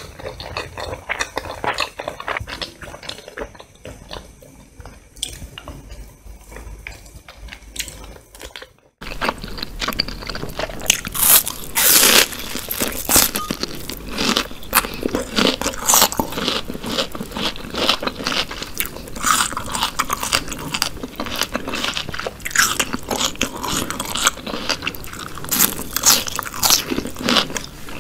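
Close-miked eating: wet chewing of roast chicken with scattered small clicks, then after a sudden break about nine seconds in, louder crunchy bites of raw red onion and chewing that go on at a quick irregular pace.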